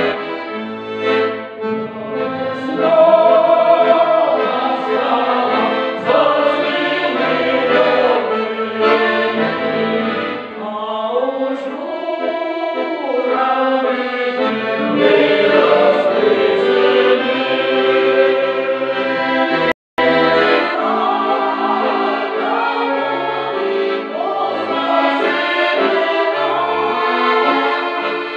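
A mixed folk choir of women's and men's voices singing a song, accompanied by a piano accordion. The sound drops out for a split second about twenty seconds in.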